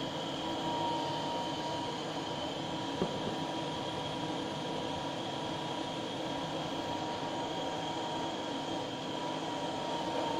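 Butane blowtorch flame hissing steadily, with a faint whistle in it, as it is played over a small tin-silver solder ingot to reflow a surface crater.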